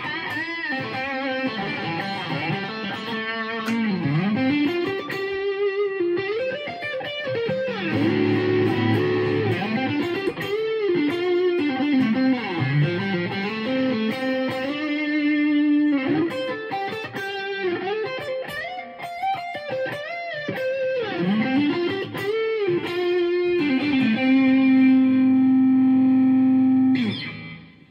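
Electric guitar with a 3D-printed Stratocaster body, played through an amplifier: a lead line of single notes with frequent pitch bends and vibrato. Near the end one note is held for about three seconds and then stopped sharply.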